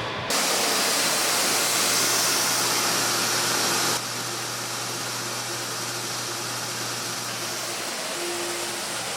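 Steady shop machinery noise with a hiss, louder for the first few seconds and then settling to a lower steady running sound with a faint whine coming and going.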